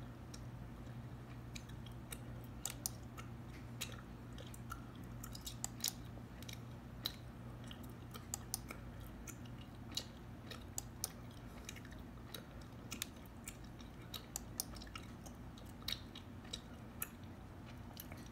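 Close-up gum chewing: irregular wet clicks and snaps from the mouth, one or two a second, over a steady low hum.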